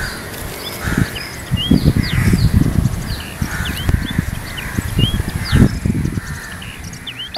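Close, low knocking and rustling from hands working through a juniper bonsai's foliage, plucking out old growth. Small birds chirp short upswept calls again and again behind it.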